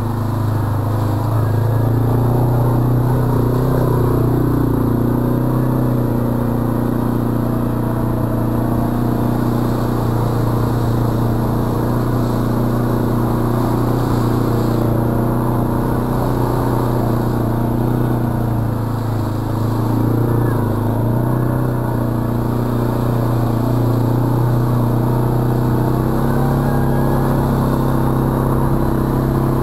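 Arctic Cat ATV engine running steadily under part throttle while riding, with small rises and dips in pitch as the throttle changes.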